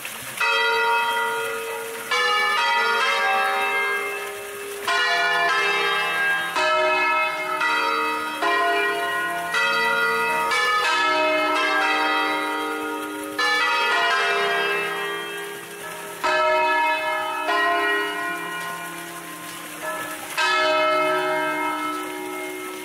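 A ring of five church bells tuned in E-flat major, mostly cast by Pruneri of Grosio, swung full-circle on their wheels and struck one after another in traditional scale patterns. Each stroke rings on and overlaps the next, with fresh loud strikes every second or two.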